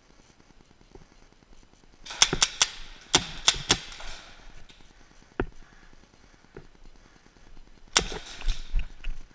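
Paintball markers firing: a quick volley of shots about two seconds in, another a second later, a single shot midway and another volley near the end, echoing in a large indoor hall.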